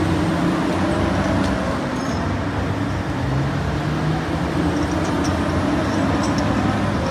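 Heavy diesel engine of a large quarry wheel loader running steadily as the machine drives away from a loaded dump truck, its pitch shifting a little partway through.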